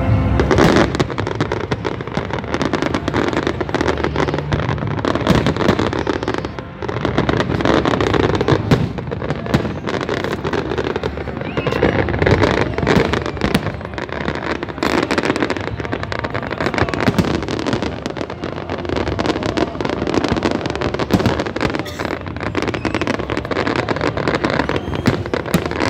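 Large fireworks display: aerial shells bursting one after another, the bangs and crackles coming so close together that they almost run into one another.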